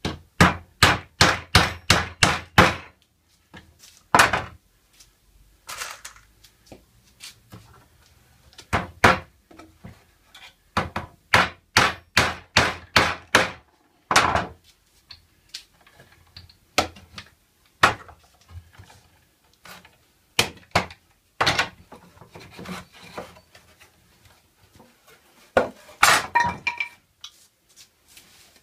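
One-handed bar clamps being worked and taken off a pallet-wood bench frame. Runs of sharp clicks at about four a second come near the start and again around the middle, with scattered wooden knocks between and a louder clatter near the end.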